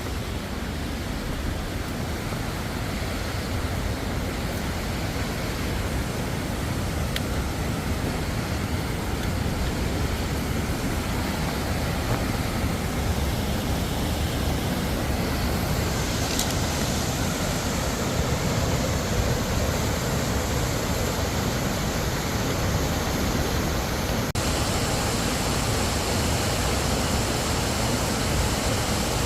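Waterfall pouring into a rocky gorge: a steady rush of falling water, growing a little louder and brighter about halfway through.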